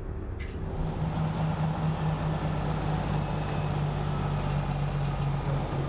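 Semi truck's diesel engine running with a steady low drone, heard from inside the cab as it drives; the drone sets in about half a second in.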